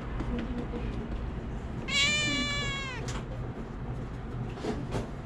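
A domestic cat meowing once, about a second long, with the pitch dropping at the end, over a steady low rumble.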